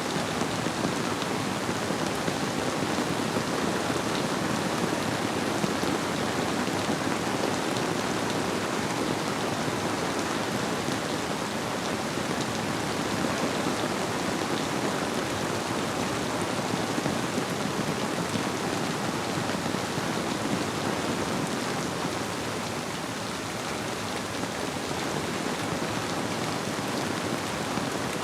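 Steady rainfall, a dense even patter of drops hitting surfaces, blended with the flow of a river.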